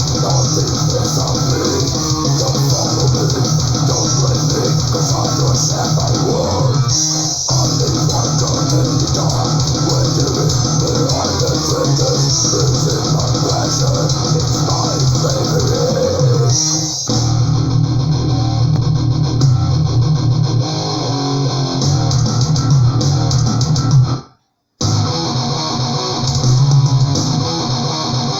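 Death/thrash metal recording with electric guitar and bass guitar. Near the end it cuts to silence for about half a second, then the music starts again.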